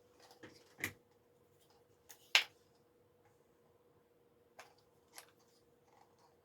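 Scattered sharp plastic clicks and handling noises as a camcorder microphone's square mounting foot is slid into its bracket. The loudest click comes a little over two seconds in. A faint steady hum runs underneath.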